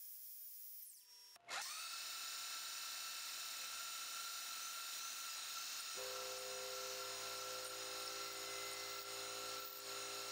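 Spindle of a Grizzly G0704 mill converted to CNC spins up about a second and a half in and runs with a steady whine while a drill bit bores into an aluminium block. About six seconds in a lower steady hum joins.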